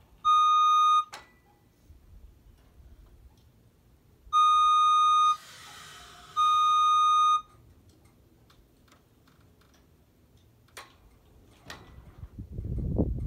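Scissor lift's electronic warning alarm beeping: three one-second beeps, at the start, about four seconds in and about six seconds in, with a short hiss between the last two. Near the end a few sharp clicks are followed by louder knocking and rattling.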